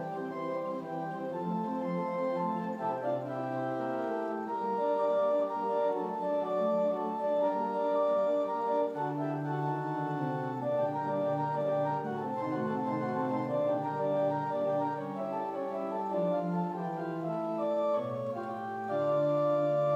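Organ played in sustained chords, the held notes changing every second or so, with low bass notes coming in a few times.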